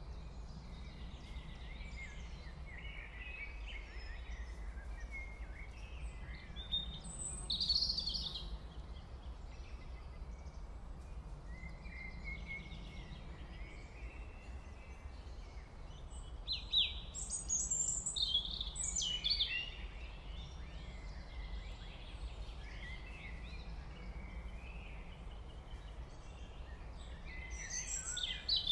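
Steady low background hum with birds chirping now and then, in clusters about 8 seconds in, again around 17 to 19 seconds in, and near the end.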